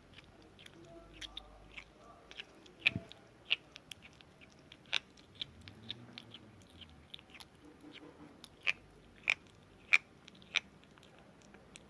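Kitten chewing its food: irregular sharp crunching clicks, some much louder than others, with a cluster of loud ones near the end.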